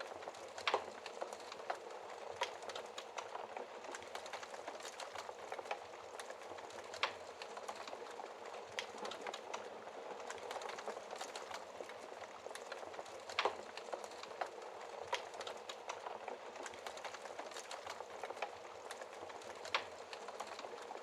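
Fire burning in a fireplace: a steady hiss with frequent small crackles and a few louder, sharper pops.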